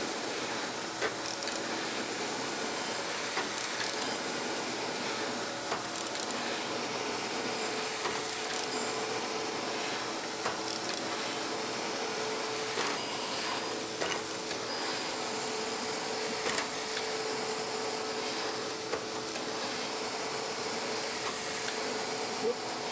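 Landis surface grinder's wheel grinding a tapered gib on the magnetic chuck: a steady, even hiss of the abrasive wheel cutting the metal, with a faint steady hum and a few light ticks.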